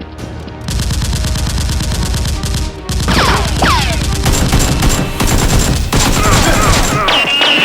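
Gunfire sound effects of rapid automatic fire, a dense stream of shots starting under a second in, with falling whistling tones joining about three seconds in. Music plays underneath.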